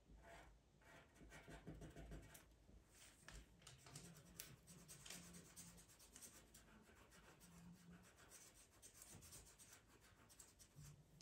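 Faint scratching of a wooden pencil drawn in short strokes over tracing paper laid on pastel paper.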